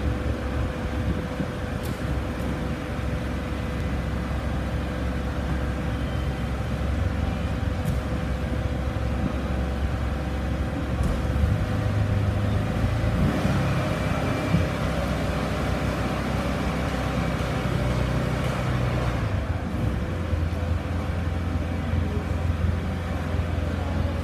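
Amphibious rescue boat's engine running steadily as a low drone while its wheel legs move and lift the hull. The drone shifts up in pitch around the middle and drops back near the end.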